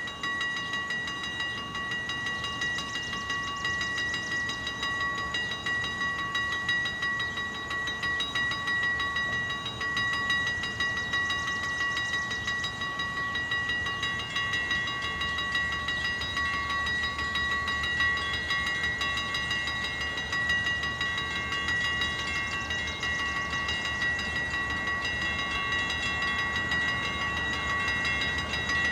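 Railroad grade-crossing bell ringing steadily, its clangs running together into a sustained ringing. From about halfway a low rumble of an approaching train builds beneath it.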